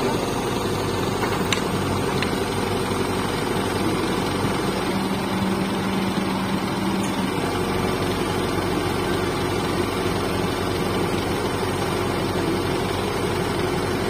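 Heavy diesel engines of a pick-and-carry crane and a backhoe loader idling steadily, with a slight shift in the engine note for a couple of seconds around the middle.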